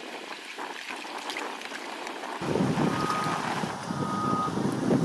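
Wind buffeting the microphone, getting much louder about halfway through, with two short beeps about a second apart near the end.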